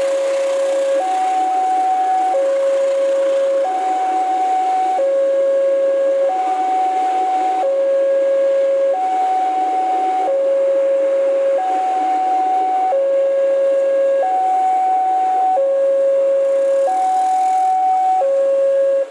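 Railway level-crossing warning alarm sounding a steady two-tone pattern, a higher tone and a lower tone alternating about every 1.3 seconds.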